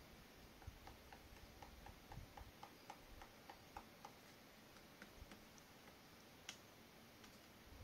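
Lilford's white-backed woodpecker pecking at tree bark: a run of faint, even taps about four a second for a few seconds, then a few scattered taps.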